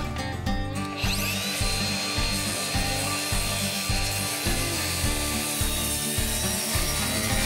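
A Makita 7-1/4-inch circular saw comes up to speed about a second in and cuts steadily across a wooden I-joist, with a steady high whine over the hiss of the cut. Background music with a steady beat plays underneath.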